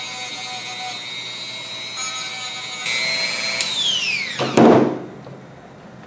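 Handheld rotary tool with a sanding drum running with a steady whine while cleaning up a small copper steam-dome cap. The whine gets louder about three seconds in, then falls in pitch as the motor is switched off and spins down. A short thud comes, the loudest moment, as it stops.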